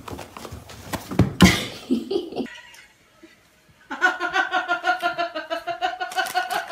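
A person laughing in a long run of quick, even bursts, starting about four seconds in. Before that come a few clicks and one loud knock.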